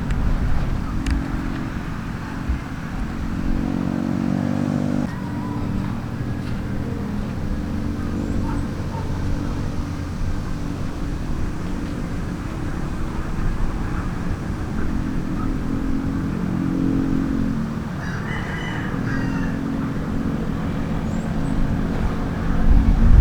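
Engines of vehicles on the adjacent highway running past steadily, their pitch shifting as one vehicle gives way to another, over a low rumble of wind.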